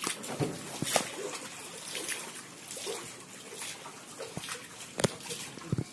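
Water splashing and trickling in a cooling tower's basin: a steady wash of water with irregular sharp splashes, the loudest about a second in and near the end.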